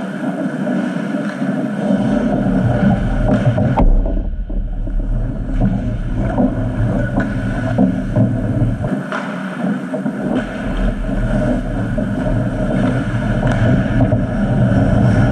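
Ice hockey rink sound heard from a camera on the goal: a steady low rumble of the arena with scattered light clicks and scrapes of skates and sticks on the ice.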